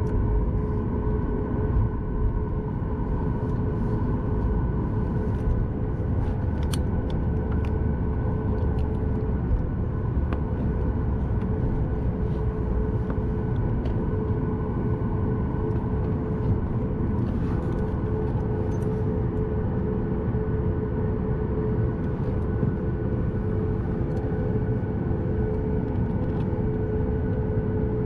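Steady cabin rumble of a Boeing 737 MAX 8 airliner in motion, with a steady engine hum in a few held tones and a few faint ticks.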